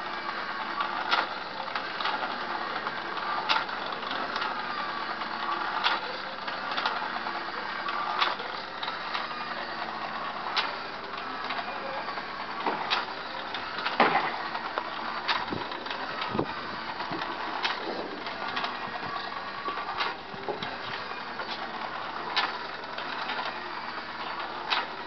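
Home-made electric rotisserie's motor and gear drive whirring steadily as it turns two meat spits over a charcoal grill, with a sharp click repeating about every two and a half seconds.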